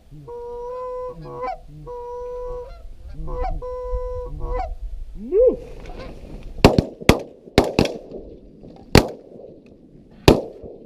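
Goose honking: four long, steady honks, then a short rising and falling call. After that a volley of about six shotgun shots over some four seconds.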